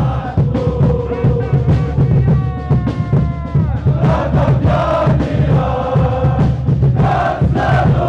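Crowd of football ultras chanting in unison over a steady drum beat, with one long held note near the middle that sags at its end.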